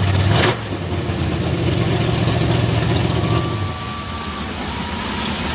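High-pressure water jets hissing steadily against a mud-caked truck, over an engine idling. The engine sound drops sharply about half a second in and fades out a little past the middle.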